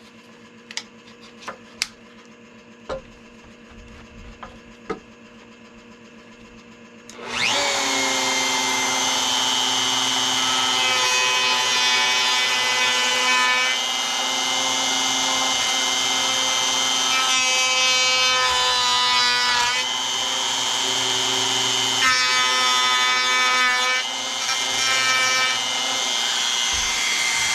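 A few light knocks, then about seven seconds in a palm router starts up and runs at high speed with a steady whine, its bit cutting a wire channel into the wooden guitar body.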